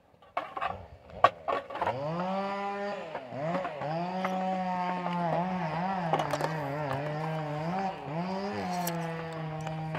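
A few sharp knocks, then a chainsaw revs up about two seconds in and runs at high revs, its pitch sagging and recovering several times as it loads in the wood.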